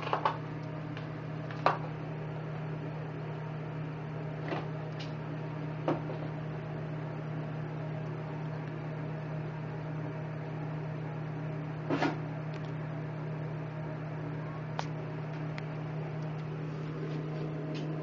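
A steady low electrical-sounding hum, with a few short knocks and clicks scattered through it, the sharpest about two seconds in and a small cluster about twelve seconds in.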